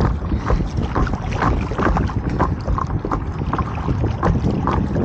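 Water slapping and splashing against the nose of a fast-moving paddle board in short, irregular slaps, over a steady rumble of wind buffeting the microphone.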